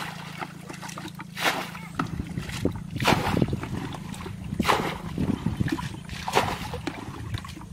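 Muddy water flung from a plastic bucket splashing out in four throws, about one every second and a half, as a ditch is bailed out by hand.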